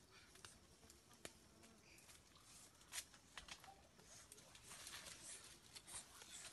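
Faint crackling and rustling of a bundle of dry sticks being carried, with the clicks coming thicker in the last couple of seconds.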